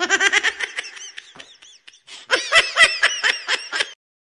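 A person laughing in two high-pitched giggling bouts, each a quick run of short pulses, cut off suddenly near the end.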